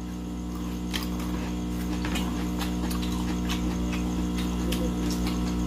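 Steady electrical hum with scattered faint clicks and smacks of people eating by hand: chewing, and fingers and food against plates.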